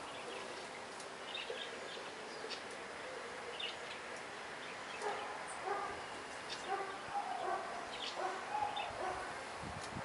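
Small birds chirping in short, scattered calls. From about halfway through, a dog barks a rapid string of times, louder than the birds.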